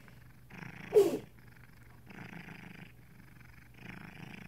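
Lilac point Siamese cat purring, swelling and fading in waves about every second and a half. About a second in, a short, loud yelp falls in pitch.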